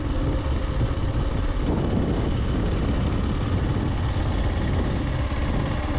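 Motorcycle running steadily as it rides along a gravel road.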